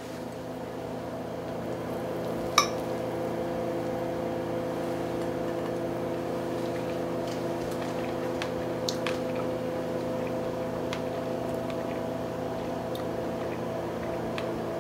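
A metal fork clicks sharply against a plate once, about two and a half seconds in, with a few fainter clicks later, over a steady hum of several tones.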